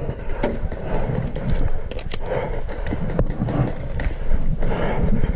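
A player's footsteps and gear rustling close to a head-mounted camera, with scattered sharp clicks throughout.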